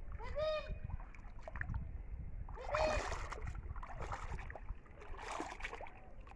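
Water splashing and sloshing, with floating water hyacinth rustling, as a person wades in a shallow weedy pond; it comes in several short bursts. Two brief high-pitched vocal sounds, one near the start and one about three seconds in.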